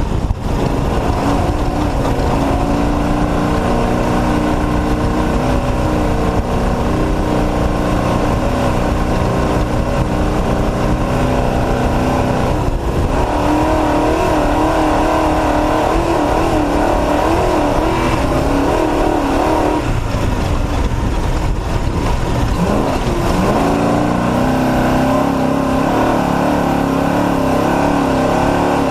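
Off-road race truck engine running hard at racing speed, its pitch rising and falling as it accelerates and lifts, with a steady rush of noise underneath; brief lifts about 13 and 20 seconds in.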